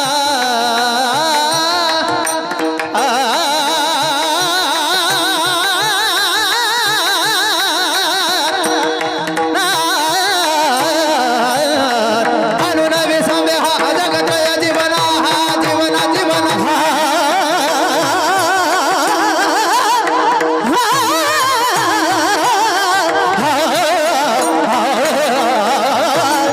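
Marathi kirtan singing: a high solo voice holding long, wavering notes over steady drone tones, with pakhwaj drum strokes beneath.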